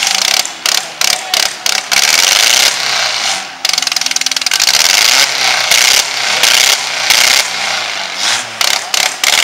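Four-cylinder demolition derby compact car engines running, a loud harsh rasping racket that cuts out sharply for split seconds several times in the first two seconds and again near the end.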